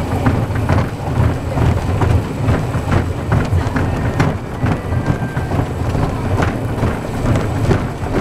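Narrow-gauge park railway train running on its track, heard from a riding coach: a steady low rumble with many irregular clicks and rattles from the wheels and coaches.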